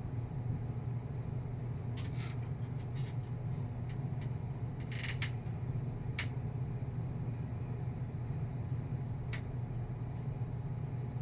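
Steady low whirring of computer cooling fans, with scattered light clicks and scrapes from small tools handling wire leads during desoldering.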